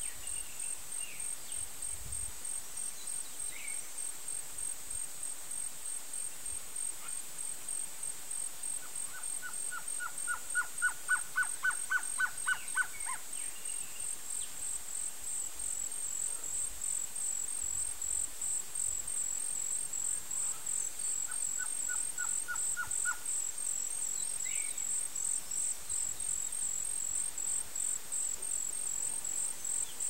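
Blue-crowned trogon singing: a run of about fifteen evenly spaced short notes at one pitch, lasting a few seconds, and later a shorter run of about seven notes. A steady high-pitched pulsing insect trill runs underneath throughout.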